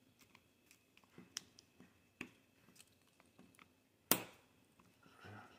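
Faint clicks and taps of fingers handling a tablet's opened plastic frame, battery and ribbon cables, with one sharp louder click about four seconds in as parts are pressed into place.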